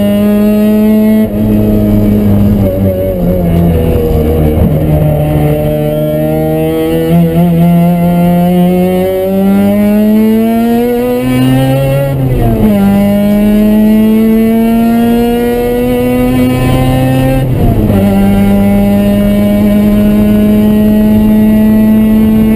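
Mazda RX-7's rotary engine heard from inside the cabin, its note falling and rising through corners in the first half. It then climbs in pitch under acceleration, dropping sharply at two upshifts about twelve and eighteen seconds in, and holds a steady high note near the end.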